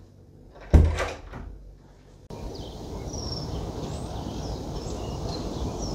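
A door shuts with a single sharp thud that rings briefly in the tiled room. After a cut, wind rushes steadily on the microphone while small birds chirp.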